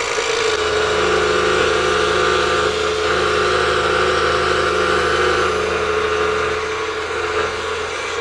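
Scroll saw running steadily, its blade cutting through a mounted photograph.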